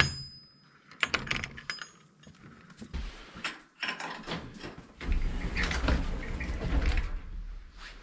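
Metal door latch clicking and a wooden door being opened with a brief squeak, then scattered knocks from a wire-mesh gate and a louder stretch of rustling and footsteps in straw bedding near the end.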